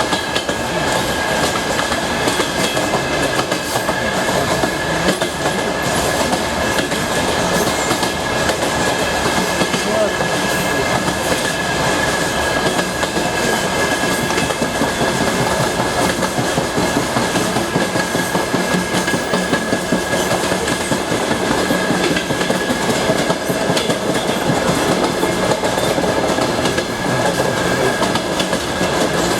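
Passenger train running at speed, its wheels clacking over the rail joints under a steady rumble, with a thin steady high-pitched tone throughout.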